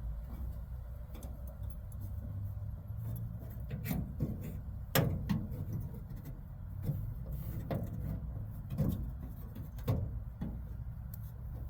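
Scattered clicks and light knocks from hands and small parts working on a car door's interior hardware (handle, lock clips and bolts), about eight of them in the middle of the stretch, over a steady low hum.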